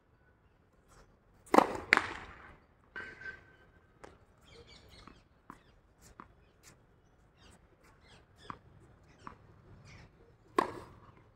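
Tennis racket strikes on a ball: two sharp pops close together about a second and a half in and another near the end, with fainter taps in between.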